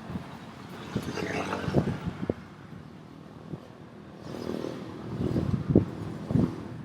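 Street traffic, a car or motorbike passing twice, with gusty wind buffeting the microphone in short low thumps.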